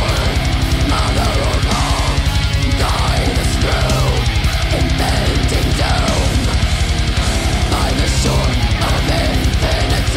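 Heavy metal song: a fast, steady kick-drum beat and distorted guitars under a woman's sung vocal line that slides up and down in pitch.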